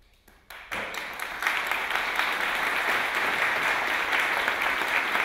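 Audience applauding: the clapping starts about half a second in and swells to a steady level within the next second.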